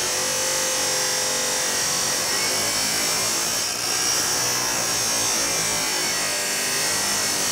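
Milwaukee M18 Fuel 14-inch cordless abrasive chop saw, its spinning abrasive wheel grinding through an old steel fence post. The grinding is steady, with a high whine, and eases briefly a little past the middle.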